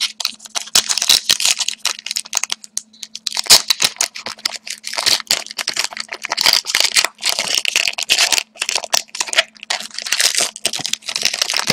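Hockey card pack wrapper being torn open and handled, a dense, irregular crinkling and crackling throughout, over a faint steady hum.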